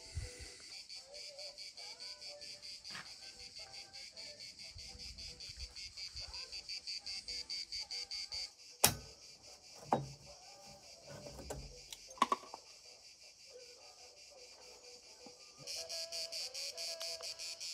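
Insects trilling in a fast, even pulse, high-pitched and continuous, with birds calling softly beneath. A sharp click about nine seconds in is the loudest sound, followed by a few softer knocks.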